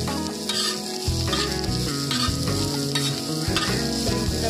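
Shredded cabbage, carrot and beetroot sizzling in hot oil on a large iron tawa while a steel spatula stirs and scrapes them across the pan. This is the vegetable stir-fry stage of street-style veg chowmein.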